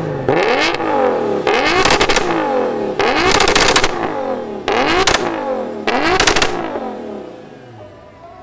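Turbocharged de-stroked VR6 (R30T) in an Audi TT being revved at a standstill: about six sharp blips, each rising and falling in pitch, the longest about three seconds in, then fading away near the end.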